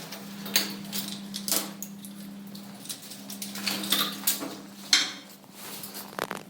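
Irregular sharp knocks and clattering, as of hard objects being handled and set down, over a steady low hum.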